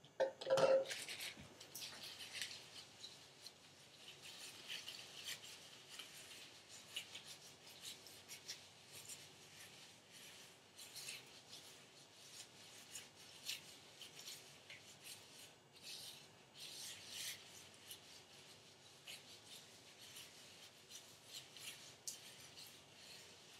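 Gloved hands rubbing and scrunching hair coated with protein treatment: an irregular high-pitched rustling of many short strokes. A short louder sound comes about a second in.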